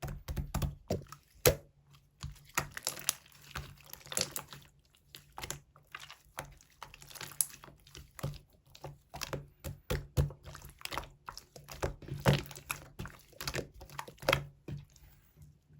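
Slime being squeezed, pressed and stretched by hand, giving a steady stream of irregular wet clicks and pops, some much louder than others.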